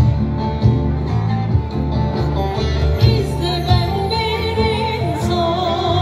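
Live music played through a large outdoor PA: heavy bass and a plucked string instrument, with a woman singing with vibrato from about halfway through.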